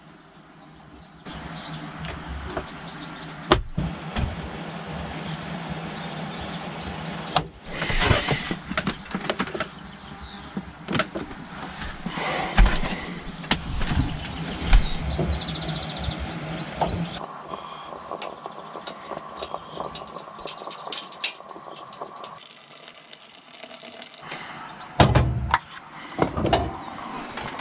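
Kitchen handling sounds at a camper van's galley: clinks, knocks and scrapes of a moka pot, pots and utensils at a steel sink and gas stove, in several short stretches that change abruptly. A steady hum runs for about five seconds past the middle.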